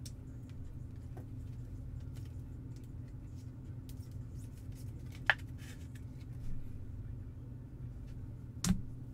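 Quiet handling of a trading card and its plastic sleeve: faint scuffs and taps, with one sharp click about five seconds in and another near the end, over a steady low hum.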